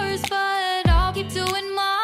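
Background pop music: a sung melody over a bass line and drum beat.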